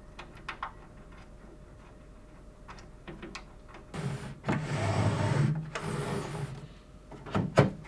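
Light metal clicks from a lock nut and washers going onto the micro adjuster's T-screw. Then the Kreg Precision router table fence slides across the table on its rails for about two and a half seconds with a rumbling scrape. Two sharp knocks come near the end.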